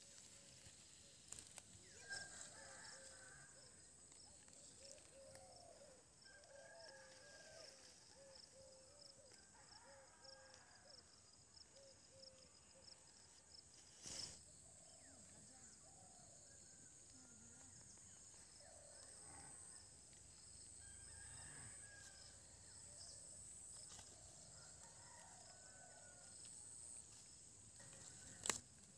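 Quiet rural field ambience: a steady high-pitched drone, with faint distant calls every second or two and a sharp click about halfway through.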